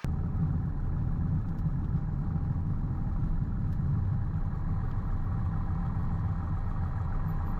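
1967 Cessna 172H's six-cylinder Continental O-300 engine and propeller running steadily at low power, heard from inside the cockpit.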